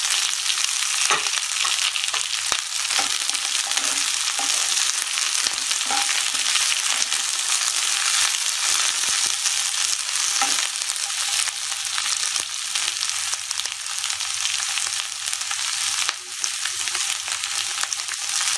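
Chopped onion and green capsicum sizzling in hot oil in a nonstick pan, stirred with a wooden spatula: a steady hiss with scattered scrapes and taps of the spatula against the pan.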